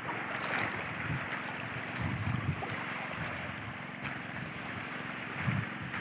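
Small waves lapping and washing up a shallow sandy lake shore, with a few gusts of wind bumping the microphone.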